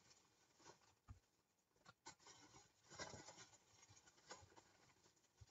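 Faint rustling and scraping with a few soft taps: craft supplies being handled and sorted through while looking for paper flowers.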